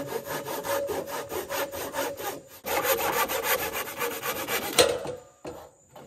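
Handsaw cutting through wood with quick, even back-and-forth strokes, in two runs with a short pause between, ending with a louder stroke about five seconds in.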